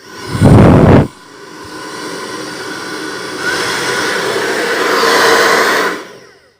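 Nova hair dryer running on its fan speed setting. It opens with a loud low rush for about half a second, then settles into a steady blowing whir that grows louder and cuts out shortly before the end.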